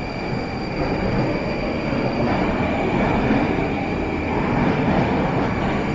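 Moscow Metro train rumbling through the station on the rails. The rumble grows louder over the first second or so and then holds steady.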